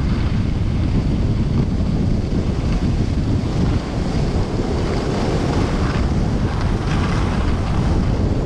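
Wind buffeting the microphone, loud and steady.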